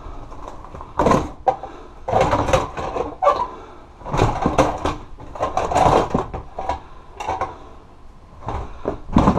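Hard plastic storage tote and its lid being pulled and shifted out of a cluttered pile: irregular knocks, scrapes and rattles, with a sharp knock near the end.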